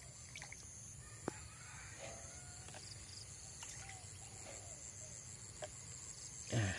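Quiet rural ambience carried by a steady, high-pitched insect trill that turns into an even pulsing about halfway through, with a few faint short bird calls and a single sharp click about a second in.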